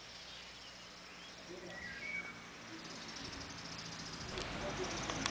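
Outdoor ambience with a few short bird chirps, then a high, pulsing insect trill that comes in about halfway. A low rumble swells near the end, with a single click.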